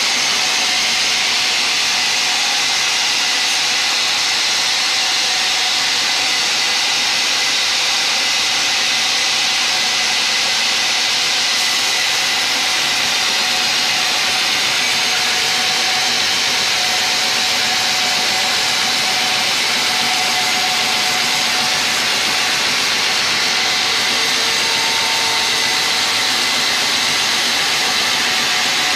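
Sawmill band saw running steadily as its blade rips lengthwise through a teak log: a loud, even noise with a thin steady whine.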